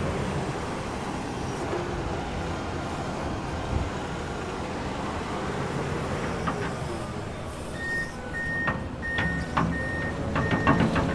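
Komatsu excavator's diesel engine running steadily. About eight seconds in, a travel alarm starts beeping about twice a second, with rapid clanking growing denser toward the end as the machine moves.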